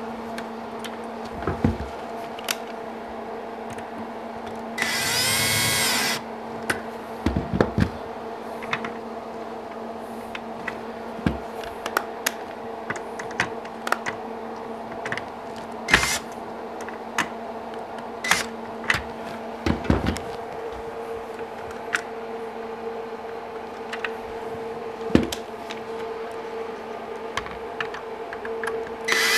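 A cordless drill/driver runs once for about a second and a half, about five seconds in, and starts again right at the end, driving screws on the saw sled. Between the runs come scattered clicks and knocks of tool and metal parts being handled on the bench, over a steady background hum.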